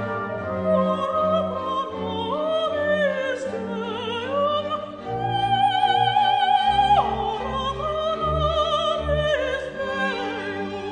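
Operatic singing with orchestral accompaniment: a voice with wide vibrato moves through a phrase, holds a long high note about five seconds in, then drops sharply to a lower line.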